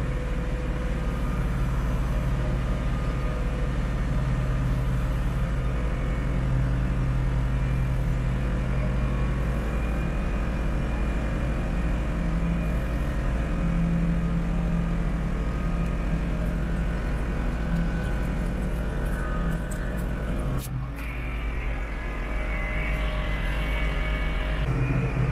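Massey Ferguson 4707 tractor's diesel engine running steadily under load while pulling a back blade through dirt ruts, heard from inside the cab. The engine note changes briefly near the end.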